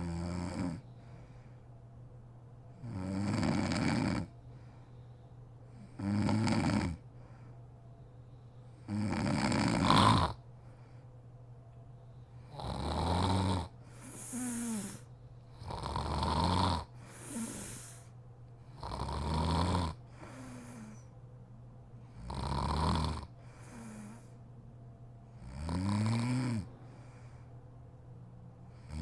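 A sleeping woman snoring in a steady rhythm, one snore about every three seconds, a few followed by a shorter, softer breath.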